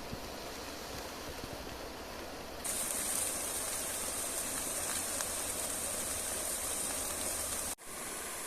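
Steady rush of river water, jumping abruptly louder and hissier about a third of the way in, with faint ticks in it, and cutting out for a moment near the end.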